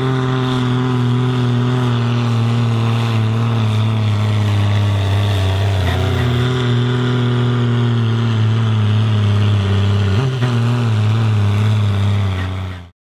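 Ford TW-25 tractor's diesel engine at full throttle under a heavy pulling load, a loud, steady drone whose pitch sags slowly as the sled drags it down, with a brief jump in pitch about ten seconds in. The sound cuts off suddenly near the end.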